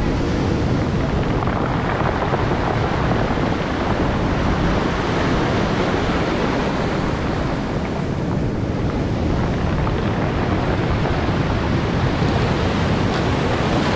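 Ocean surf breaking and washing ashore in a steady rush of foam, with wind buffeting the microphone.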